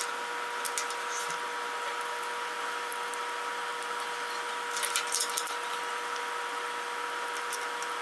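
Small metallic clicks and light taps as the brass terminal insert of a 220 V plug is handled and its terminal screws are worked with a flathead screwdriver to clamp the wires. A cluster of clicks comes about halfway through. A steady high hum runs underneath.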